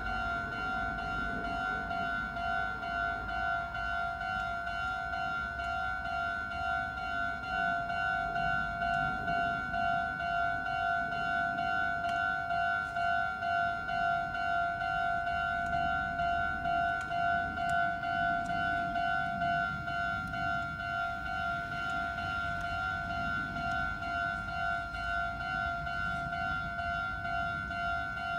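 Japanese railway level crossing's electronic warning bell ringing continuously, a rapid, evenly repeating ding on a steady pitch. A low rumble runs underneath.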